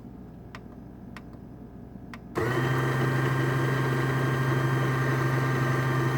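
Electric burr coffee grinder switched on empty, its burrs set close for espresso grind: after a few faint clicks, the motor starts abruptly about two and a half seconds in and runs with a steady hum and a high whine.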